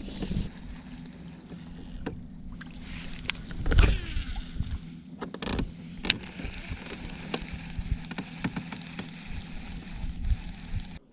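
Kayak's electric trolling motor humming steadily, with scattered knocks and clicks on the hull and a heavier knock about four seconds in.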